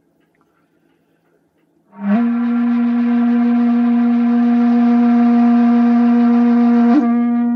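Shakuhachi, the Japanese end-blown bamboo flute, playing a Fuke-shū honkyoku piece. About two seconds in, a long, breathy low note enters with a slight scoop up in pitch and is held steadily. Near the end it flickers briefly and carries on with less breath in the tone.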